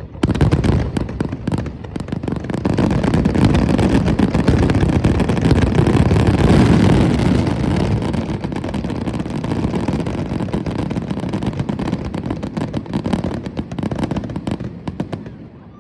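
Fireworks going off in a dense, continuous barrage of bangs and crackles over a heavy rumble, thinning out near the end.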